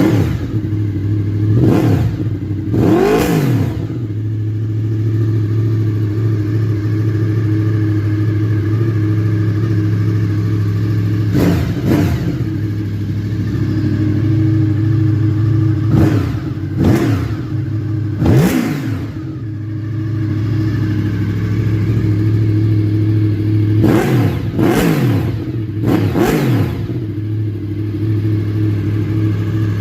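KTM 1290 Super Duke R Gen 3 Evo's 75-degree V-twin, running through a full titanium exhaust with the baffle removed, idling steadily. The engine is given about nine quick throttle blips, some in pairs and threes, each revving up and dropping straight back to idle.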